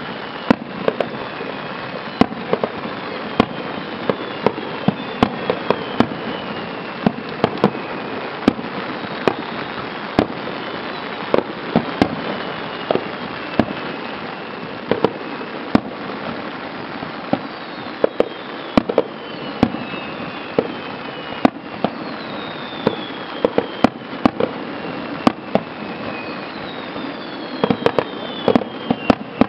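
Aerial firework shells bursting one after another at irregular intervals, a sharp bang every second or so, with a quicker cluster of bangs near the end, over a steady hiss. A few faint high whistles slide down in pitch between the bangs.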